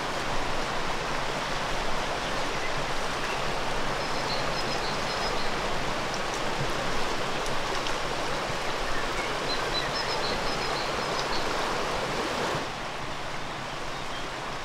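Steady rush of flowing river water, with a few faint high chirps about four and ten seconds in; the rush turns quieter and duller near the end.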